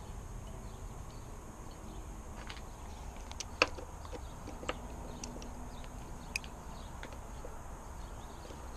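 About half a dozen sharp, brief clicks and clinks of a spark plug socket and extension knocking against the outboard engine as a new spark plug is fitted by hand, the loudest a little past three and a half seconds in, over a steady low background noise.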